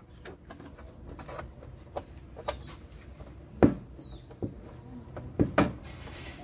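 Light clicks and knocks of a TV's plastic frame and LCD panel being handled and pressed into place, a few sharper knocks about three and a half and five and a half seconds in, with a short high squeak about four seconds in.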